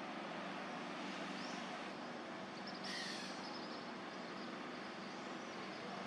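Steady outdoor background hiss with a faint low hum, and a couple of short, high bird chirps about three seconds in.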